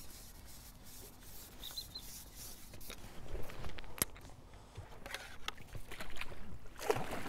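Irregular rubbing and rustling handling noise, with a single sharp click about four seconds in.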